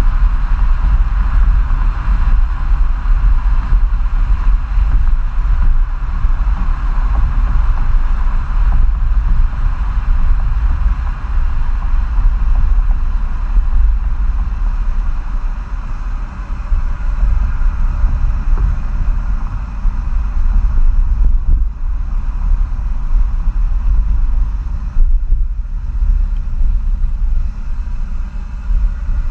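Exhaust of a 2015 Jeep Grand Cherokee EcoDiesel's 3.0-litre V6 turbo-diesel, stage 2 tuned with the DPF and EGR deleted, running steadily while the vehicle drives on the road, mixed with a heavy wind rumble on the microphone.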